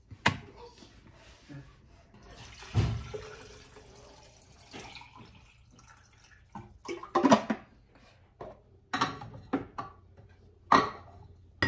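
Water poured from a plastic pitcher into a glass carafe, with scattered clicks and knocks of containers being handled and set down.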